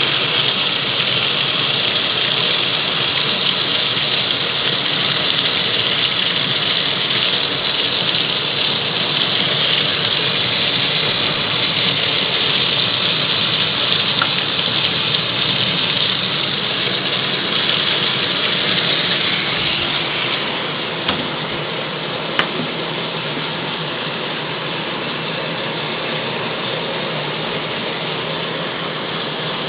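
Mueller 10 kg washing machine running its fabric-softener stage, a steady rushing noise that drops a little about two-thirds of the way through, with a single sharp click shortly after.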